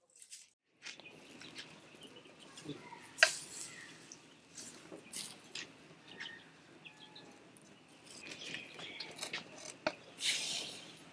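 Open wood fire crackling under the spit, with scattered sharp pops, the loudest about three seconds in, and a brief hissing rustle near the end. Birds chirp faintly in the background.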